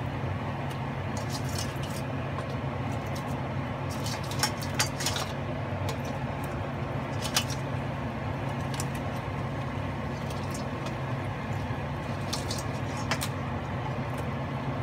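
Lightly fried koi fish being laid by hand into a pan of hot gravy, with a handful of sharp clicks and taps of fish against the pan, over a steady low hum.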